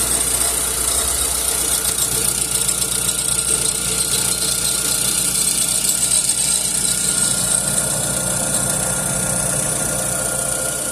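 Chevrolet Corsa hatch engine idling just after start-up, with an extra noise running over the idle that quietens near the end. The noise comes at every start and goes once the car warms up. Others have suggested a worn water pump bearing; the owner fears it is the engine itself.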